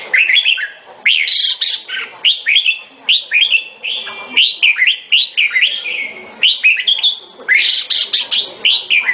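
Red-whiskered bulbul singing: a loud, rapid string of short sweeping whistled notes, phrase after phrase with brief pauses.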